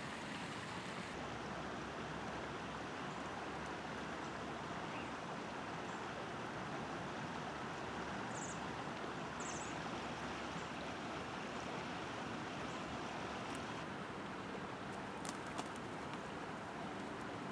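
Steady rushing outdoor background noise, with two faint high chirps about halfway through.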